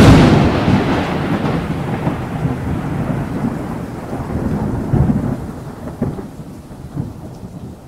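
A clap of thunder that breaks suddenly and rolls on in a long, slowly fading rumble, with further rumbles about five, six and seven seconds in, over a steady hiss of rain.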